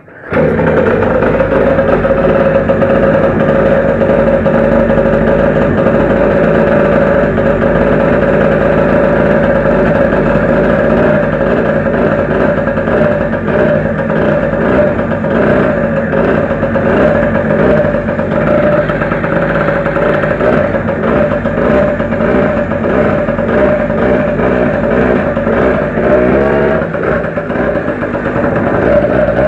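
Zanella 70cc two-stroke moped engine catching and then running at a steady fast idle, with a brief blip of revs near the end.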